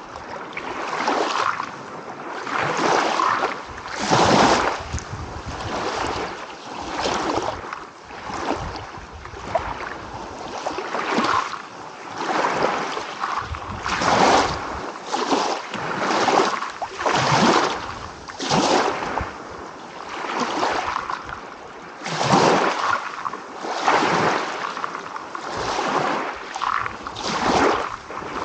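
Small waves rolling in and washing onto a beach, a rushing swell of surf every second or two.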